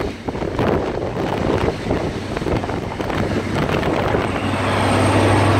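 Diesel High Speed Train (InterCity 125) passing at low speed. The coaches rumble and clack over the rails, then from about four seconds in the rear Class 43 power car draws level: its diesel engine gives a steady low drone with a faint high whistle above it.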